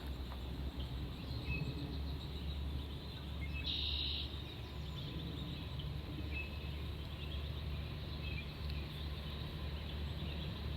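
Outdoor ambience: a steady low rumble with a few short bird chirps, and a brief buzz about four seconds in.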